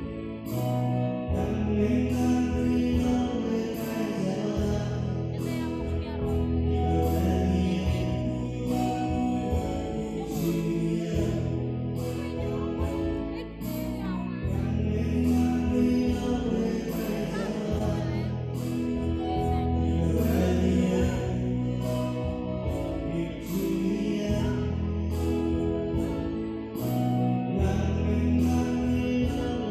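Church choir singing a gospel song to electronic keyboard accompaniment with bass and a steady drum beat.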